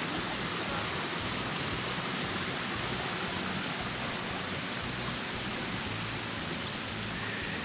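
Rushing water of a forest mountain stream running full after heavy rain, a steady even rush with no change.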